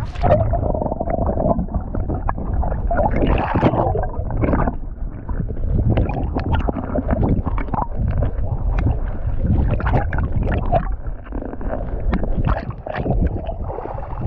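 Muffled underwater rumbling and gurgling of sea water moving around a submerged action camera, with scattered faint clicks and knocks; the sound opens up again as the camera breaks the surface at the very end.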